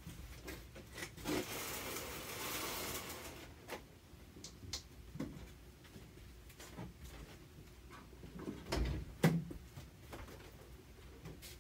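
Cargo being handled inside a van: about a second in, a scrape lasting two seconds, like a box being slid across the floor, then scattered light knocks and a louder thump about nine seconds in.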